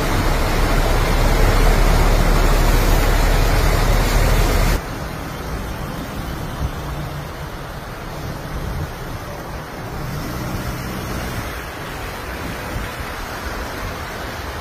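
Fast-flowing floodwater rushing across fields, a loud steady rush of water with wind buffeting the phone's microphone. About five seconds in it cuts abruptly to a quieter, steady noise of wind and water.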